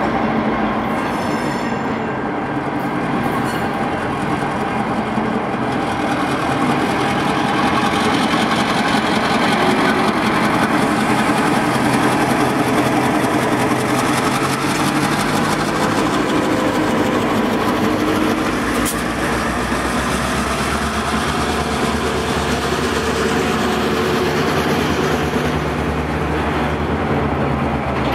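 Two EMD GP38-2 diesel locomotives, each powered by a 16-cylinder two-stroke EMD 645 engine, pass close by with a steady engine drone. Toward the end, auto-rack freight cars roll past.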